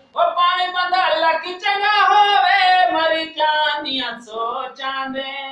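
A man singing a Punjabi folk song unaccompanied in a high voice. He draws out long, wavering notes, with short breaks for breath between phrases.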